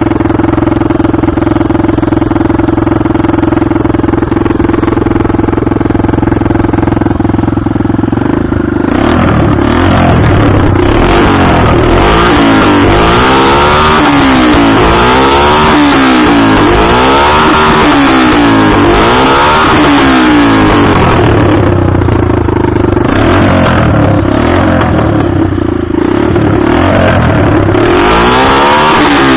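Hartford VR 150 motorcycle engine running with no exhaust fitted. It idles steadily, then about nine seconds in it is revved repeatedly in quick rises and falls, settles back to idle, and is revved again near the end.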